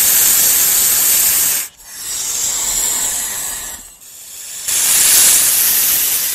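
Snake hissing: three long hisses, the first and last loud, the middle one softer.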